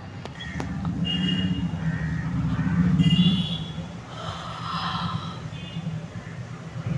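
A person yawning: one long voiced yawn that swells to its loudest about three seconds in, then trails off into breathing.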